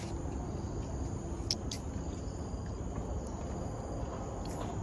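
Forest ambience with faint insect calls over a steady low rumble, and two sharp ticks close together about a second and a half in.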